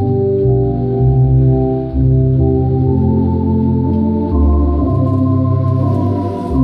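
Tokai MD-750 electronic organ playing a slow hymn in full sustained chords over a bass line. The bass comes in right at the start, and the chords change about once a second.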